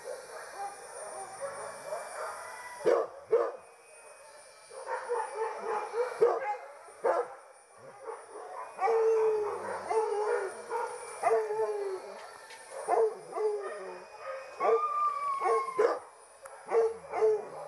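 Hunting dogs barking and baying, with drawn-out howling calls that fall in pitch between sharp barks and one long high howl about fifteen seconds in. This is the baying of a boar-hunting pack on the hunt.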